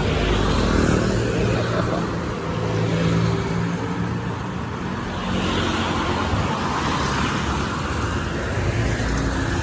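Busy street traffic: motor vehicles running and passing close by, a steady mix of engine hum and road noise, with the engines loudest in the first few seconds.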